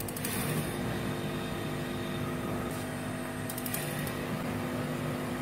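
Small electric biogas booster pump humming steadily. Quick clicks from the stove's burner igniter come right at the start and again after about three and a half seconds as the burner knobs are turned.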